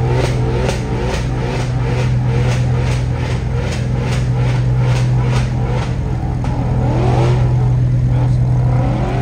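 Supercar engines running loud and steady at a hillclimb start line as a car launches off it, with a regular pulsing about three times a second over the steady engine note.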